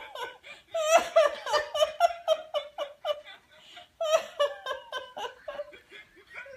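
A woman laughing hard in quick, high-pitched pulses, two long runs of laughter broken by a short pause about three seconds in.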